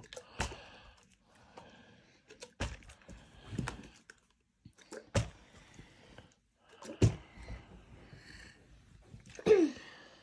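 Plastic drinks bottle flipped and landing on a padded sofa again and again: about six dull thuds a second or two apart. The loudest thud comes near the end, with a short falling squeak after it.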